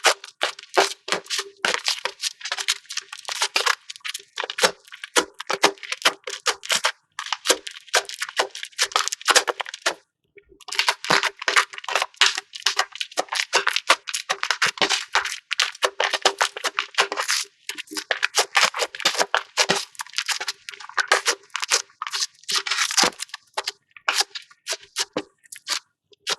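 Dense, rapid crunching and crackling of a soft play material, slime or kinetic sand, being pressed, squeezed and cut by hand, with two brief pauses.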